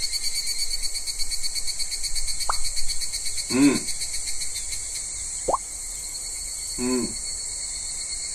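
Steady shrill drone of a summer insect chorus, with a short rising pop effect about every three seconds and two brief wavering calls from the meme characters.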